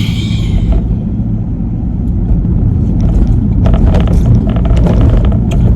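Steady low rumble of a car driving, heard from inside the cabin, with a run of short clicks in the second half.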